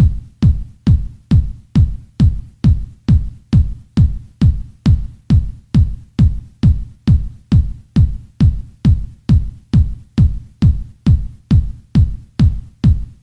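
Electronic dance-track intro with a lone drum-machine kick drum beating a steady four-on-the-floor pulse, a little over two beats a second. Each kick drops quickly in pitch.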